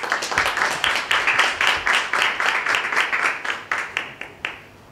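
Audience applauding: a burst of clapping that starts suddenly and dies away about four and a half seconds in.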